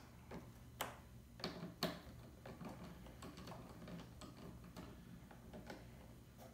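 Faint, irregular clicks and ticks of a hand screwdriver turning screws back into the plastic housing of an instrument cluster. The sharpest few come in the first two seconds.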